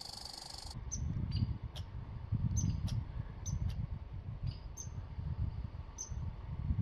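A steady high buzz stops abruptly just under a second in. After it come about ten short, sharp, high chirps from a small wild animal, spaced irregularly, over a low rumble.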